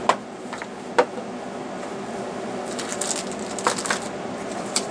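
A package being opened and handled: two sharp clicks about a second apart, then several short bursts of rustling.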